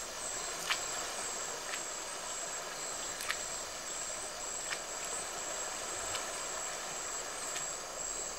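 Rainforest ambience: a steady, high-pitched insect drone over a soft background hiss, with scattered short clicks.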